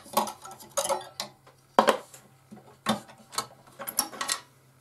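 Irregular sharp clicks and taps of small metal parts as the stock blade clamp is worked loose and pulled off the upper arm of a scroll saw. The loudest click comes a little under two seconds in.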